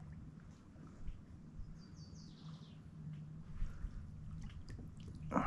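Faint bird chirps, a short run of high falling notes about two seconds in, over a steady low hum, with a louder sudden sound right at the end.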